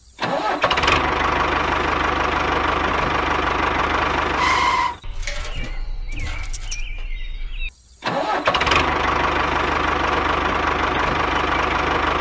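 Tractor engine running steadily. It drops out for a few seconds around the middle, where a few clicks and short high tones are heard, then runs steadily again.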